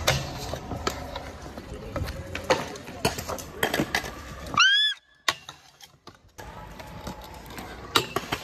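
Trick scooter knocking and clacking as it is ridden into a called frontboard trick. About halfway through comes a short squeal that rises and falls, then a brief near-silent gap.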